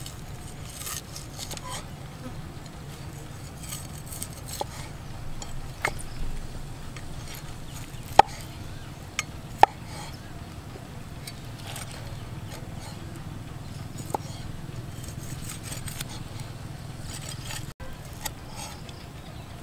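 Cleaver chopping cooked meat on a wooden log chopping block: a few sharp knocks spaced seconds apart, the loudest about eight and nine and a half seconds in, over a steady insect-like buzz.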